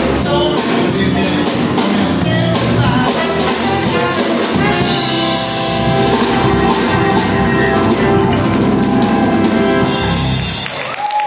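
Live band of trombone, trumpet, saxophone, keyboard, electric guitar and drums playing the end of a song, moving into a long held final chord with cymbals in the second half before cutting off.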